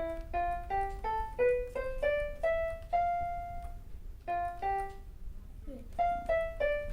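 Battery-powered electronic keyboard played one note at a time with a piano-like voice, picking out a do-re-mi scale. The short notes step upward, one note is held longer about three seconds in, and after a brief pause more short notes follow.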